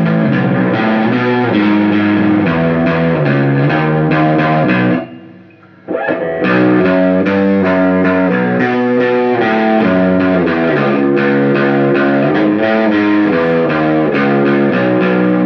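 Squier Paranormal Baritone Cabronita Telecaster played through its bridge single-coil pickup: a riff of picked notes, with a brief pause about five seconds in before the playing resumes.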